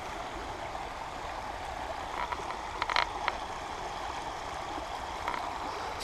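Shallow creek running over stones, a steady rushing of water, with a few brief clicks a couple of seconds in.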